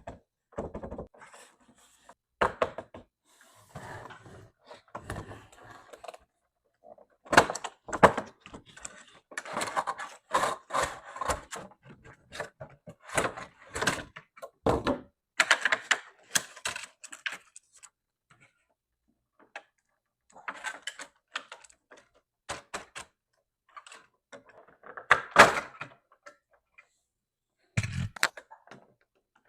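Toy packaging being handled and opened by hand: irregular knocks, taps and clicks with bursts of rustling.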